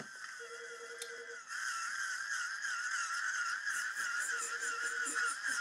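A high, wavering electronic tone that warbles up and down throughout, with two short runs of low, rapid beeping, about half a second in and again about four seconds in.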